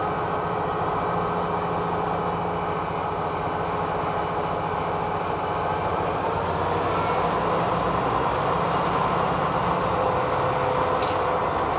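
CSX diesel-electric freight locomotives running as the train moves slowly along the track: a steady engine drone with a high whine that rises a little in pitch and loudness about halfway through. A brief click near the end.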